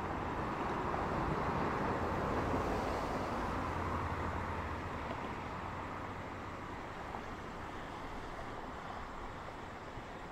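Road traffic: cars passing on a multi-lane road with a steady tyre-and-engine rush, swelling a couple of seconds in and then slowly fading as the road empties.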